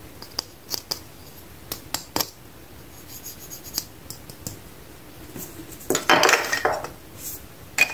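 Small hard-plastic toy figurines and toy food pieces clicking and tapping against each other as they are handled, with a louder plastic clatter about six seconds in as a figure is put down among the pile.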